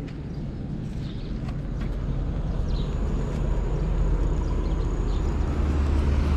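Engine of a small motorcycle with a sidecar running and growing louder as it gets under way, with a few light clicks in the first two seconds.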